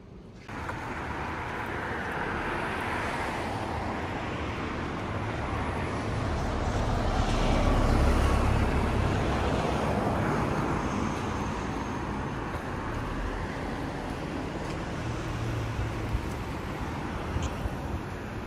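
Street traffic noise, with a car passing close: the rush of tyres and engine swells to its loudest about halfway through, then fades back into the steady traffic hum.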